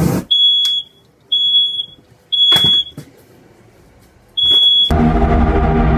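Smoke alarm sounding four loud half-second beeps at one high pitch, about a second apart, set off by a fireball from a lit aerosol spray can. A few short thumps come between the beeps, and music starts near the end.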